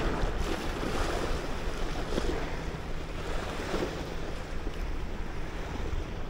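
Small sea waves lapping against the rocky shoreline, swelling and fading every second or two, under steady wind rumble on the microphone.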